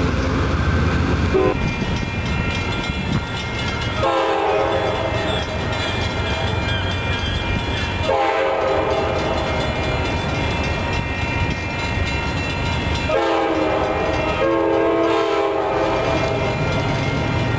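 Horn of an approaching Amtrak San Joaquin train sounding a chord in long, long, short, long blasts, the grade-crossing signal, after a brief low rumble of train noise at the start.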